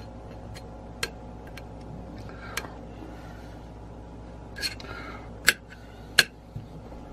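A handful of sharp, irregularly spaced clicks of a metal fork touching a ceramic plate, over a steady low hum.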